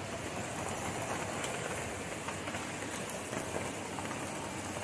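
Steady rain falling, a continuous even hiss with a few scattered light ticks of individual drops.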